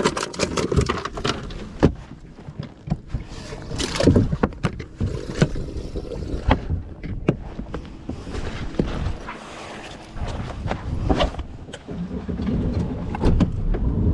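Irregular knocks and clatter aboard a bass boat, then the outboard engine starting to run near the end.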